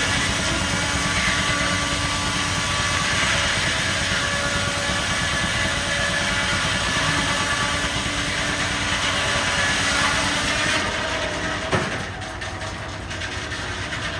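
Steam-engine-powered sawmill running: a steady mechanical clatter with faint steady whining tones. About three-quarters of the way through it gets quieter, with one sharp knock.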